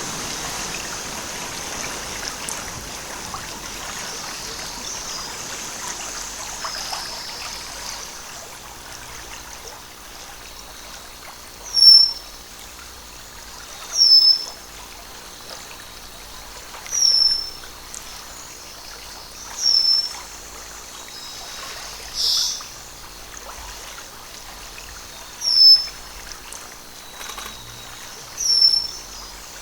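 A stream trickling, louder in the first few seconds. From about the middle a bird repeats a short, high, falling call every two to three seconds, about six times.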